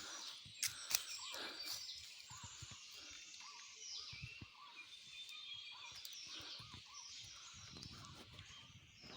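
Several wild birds chirping and warbling in overlapping short calls, with a few sharp clicks in the first second or so.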